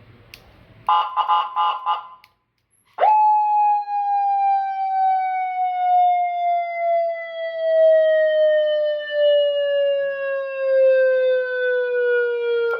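Vietnamese traffic-police siren: a short burst of rapid pulses about a second in, then after a brief gap one loud wail that jumps up and falls slowly and steadily in pitch for nearly ten seconds before cutting off abruptly.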